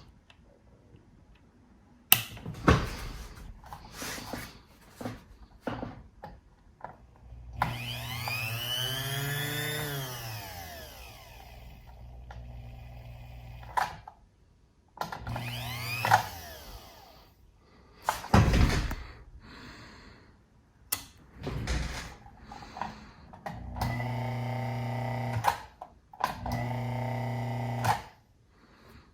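Antique electric dental drill motor switched on and off several times. It spins up and winds back down once, then runs in short steady bursts of one to two seconds, with sharp clicks and knocks in between.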